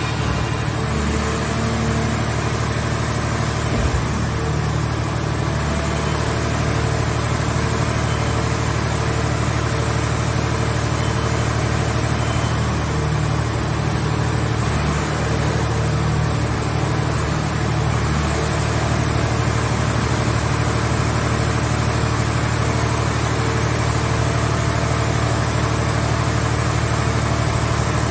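Car scrap baler's engine running steadily at a constant speed, with a thin high whine that wavers slightly in pitch.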